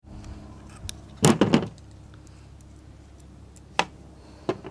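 Metal clicks and clatter of pliers working the screw-on terminal nut off a spark plug, with plugs being set down on a table: a quick burst of clicks a little over a second in, then single clicks near the end, over a steady low hum.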